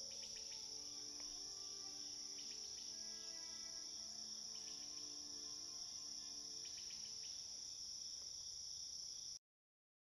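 Steady chorus of crickets chirring, with soft held music tones underneath and a few clusters of short high chirps. It cuts off suddenly near the end.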